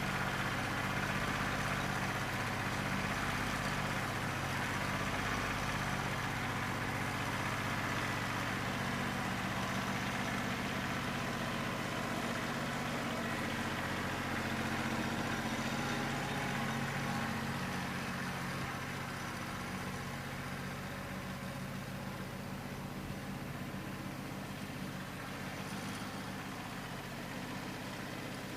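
New Holland 1320 tractor's three-cylinder diesel engine running steadily, a little quieter from about two-thirds of the way through. It is running on only about two and a half cylinders, which the owner puts down to a bad injector, and it is not cured when hot.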